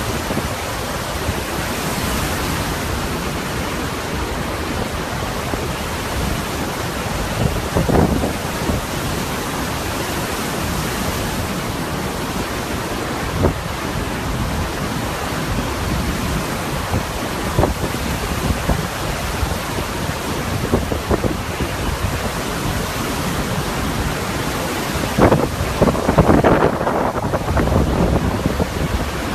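Storm wind and heavy driving rain as a steady loud noise, with wind buffeting the microphone. There are a few brief louder bursts, the biggest cluster near the end.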